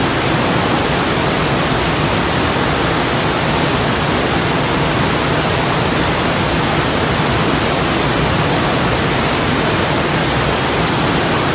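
Loud, steady hiss-like rushing noise, even across low and high pitches, with no distinct events or tones.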